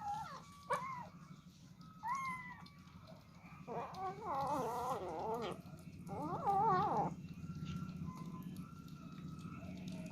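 Kittens meowing: three short high meows in the first couple of seconds, then a long wavering meow about four seconds in and another shorter one about six seconds in.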